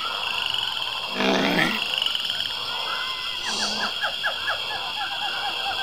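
Forest ambience from the soundtrack of an animated frog-like tree creature: a steady high insect buzz and many short chirping calls, with a louder croak from the creature a little over a second in.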